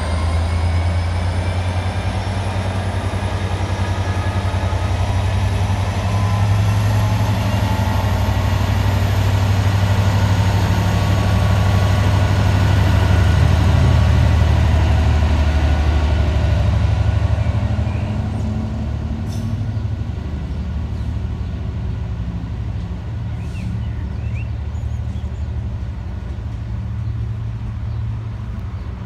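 GBRF Class 66 diesel locomotive (turbocharged two-stroke V12) working hard as it pulls a heavy engineering train away, with a deep engine rumble and a high whine rising in pitch over the first several seconds. It is loudest about halfway through as the locomotive passes below, then drops to a lower steady rumble as the loaded wagons roll past.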